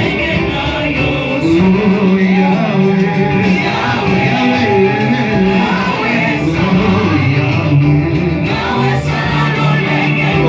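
Live gospel worship music: singers over a band with guitar, playing on steadily and loudly.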